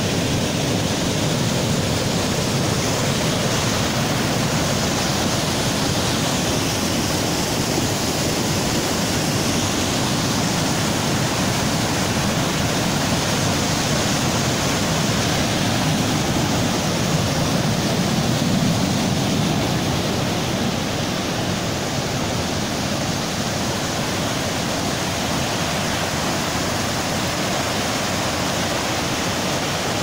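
Fast mountain stream rushing white over rocks and down a small waterfall: a steady, loud rush of water, a little softer after about twenty seconds.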